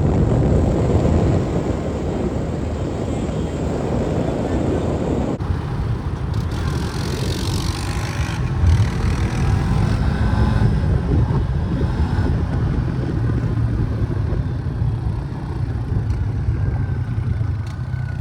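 Off-road vehicle engines running while riding, with heavy wind rumble on the microphone. The sound changes abruptly about five seconds in.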